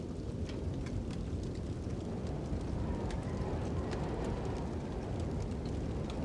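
Fire crackling with scattered sharp pops over a steady low rush of wind.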